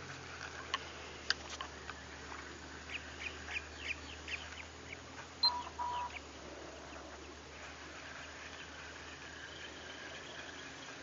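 Short bird calls repeating over a few seconds, among scattered light clicks, with two short even-pitched beeps about halfway through and a faint steady hum of calling near the end.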